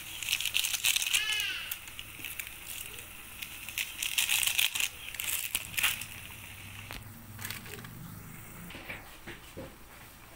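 Plastic seasoning sachets crinkling as they are handled and squeezed out over a pan, in irregular bursts, busiest near the start and again around the middle.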